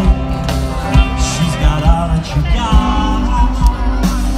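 A live band plays a pop song through a stadium PA, heard from within the audience: a singing voice over guitars, bass and a steady drum beat.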